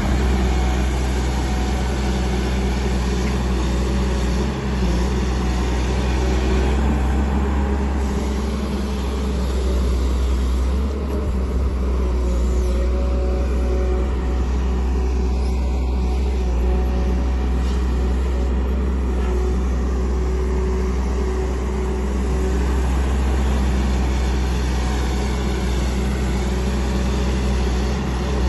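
Tata Hitachi EX200 crawler excavator's diesel engine running steadily under load while the machine digs, a continuous low rumble.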